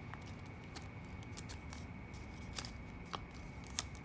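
A folded US dollar bill crackling faintly under the fingers as its creases are pressed and held, with a handful of small, sharp crackles scattered through.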